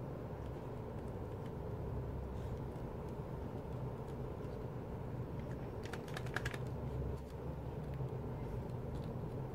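Plastic CD jewel case clicking and tapping as fingers pry at its edge, with a short cluster of sharp clicks about six seconds in, over a steady low background hum.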